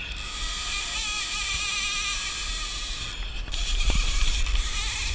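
Big-game fishing reel's drag running as a hooked tuna pulls line off: a steady high-pitched whine with a wavering pitch, over a low rumble of wind and the boat.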